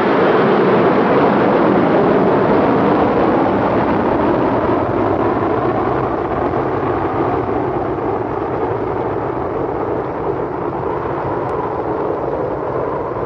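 Jet airliner's engines at takeoff power on the runway, a steady rushing noise that slowly fades.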